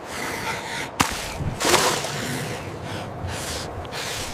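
Water splashing and sloshing around a struggling cow, with a sharp crack about a second in.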